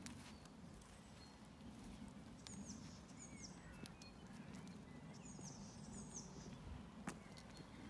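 Faint footsteps crunching on a gravel track, with a small bird singing short, high, down-slurred phrases in the background. A single sharp click sounds about seven seconds in.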